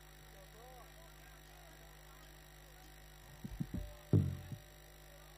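A steady low hum from the sound system, then, about three seconds in, a few heavy drum strikes begin, the loudest just after four seconds: the jaranan band's drums starting up through the PA.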